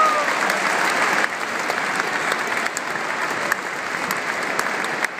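Large stadium crowd applauding, a steady wash of clapping that eases slightly after about a second.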